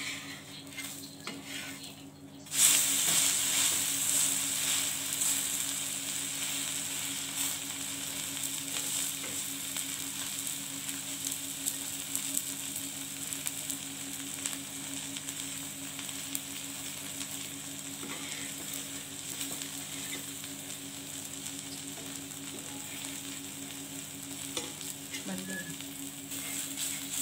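Uttapam frying on a hot iron tawa: a loud sizzle starts suddenly about two and a half seconds in, as the batter is flipped vegetable side down onto the oiled pan, then slowly eases off into steady frying.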